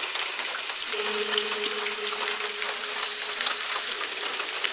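Steady frying-like hiss of static from the Echovox ghost-box app played through a small speaker on a phone, with rain falling. From about a second in, a steady low tone holds for about three seconds.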